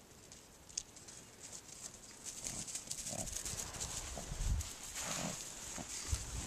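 Footsteps and rustling through tall grass and brush, with crackling stems and low thuds, starting about two seconds in after a quiet start. A pug snuffles close by.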